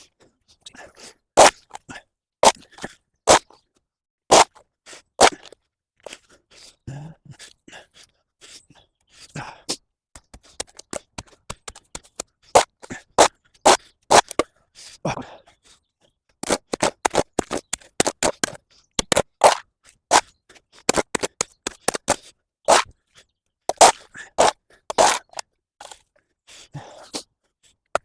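Repeated short scrapes and crunches of a hand tool cutting into mud, leaves and gravel along a path edge, at an irregular working pace that speeds up in the second half.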